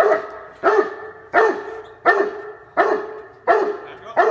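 Cane Corso barking steadily at a decoy during personal-protection work, about one and a half deep barks a second, each trailing off in the echo of a large warehouse.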